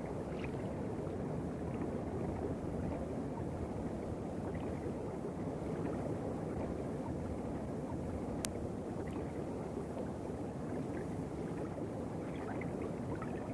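Steady low rushing underwater ambience, with a single sharp click about eight and a half seconds in.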